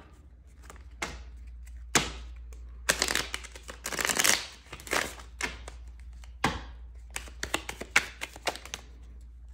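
Tarot cards being shuffled and handled as clarifier cards are drawn: short papery rustles and clicks, a longer rustling run about three to four and a half seconds in, then a quick patter of card flicks near the end.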